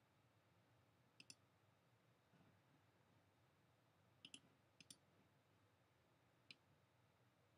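Faint computer mouse clicks, mostly quick click pairs: one about a second in, two around four to five seconds in, and a single click near six and a half seconds. The clicks are selecting a font and grabbing a text box on screen.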